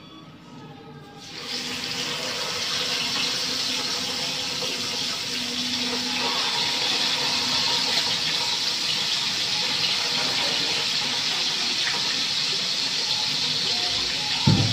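Pot of squash and string beans in coconut milk at a hard boil under a glass lid, a steady bubbling hiss that comes up about a second in. There is a short knock right at the end.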